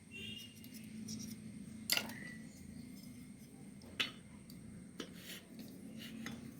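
A few sharp metallic clicks and knocks from the washing machine's spinner parts being handled and fitted, the loudest about two seconds in with a short ring after it, over a steady low hum.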